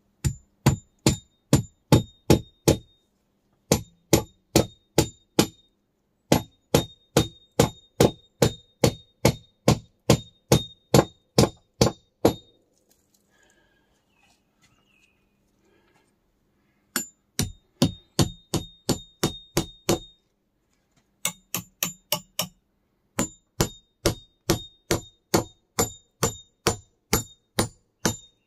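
Hammer-like metal blows with a ringing clang, struck about three times a second in runs of a few seconds, with short pauses between runs and a longer break around the middle.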